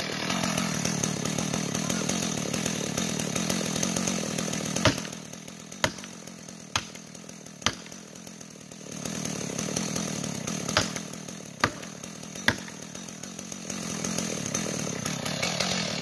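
Chainsaw running as it cuts into a large birch trunk, its engine easing off for a few seconds in the middle before picking up again. Two runs of sharp knocks, about one a second, come over it: four around the middle and three later.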